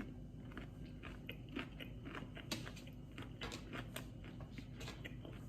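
A person chewing a mouthful of food, with faint, irregular crunching and mouth clicks.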